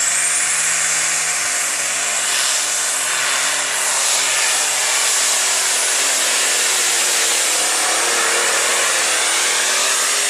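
John Deere open super stock pulling tractor under full load, dragging a weight-transfer sled. Its engine runs hard and steady at high revs, with a thin high whine on top that climbs in the first second.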